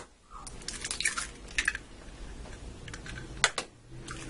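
An egg being cracked: small clicks and crunches of eggshell, then one sharp crack about three and a half seconds in as the shell is broken open.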